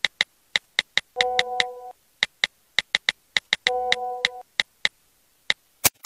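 Smartphone on-screen keyboard tap clicks, quick and irregular, as someone types a message. A short electronic chord sounds twice, about two and a half seconds apart.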